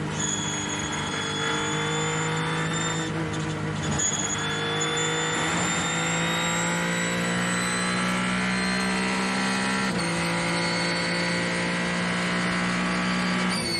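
Ferrari 499P Hypercar's twin-turbo V6 heard from onboard, running hard at high revs while the car accelerates down a straight, its pitch climbing slowly. It pauses briefly for an upshift about four seconds in and drops a little at a second gear change about ten seconds in, with wind and tyre noise underneath.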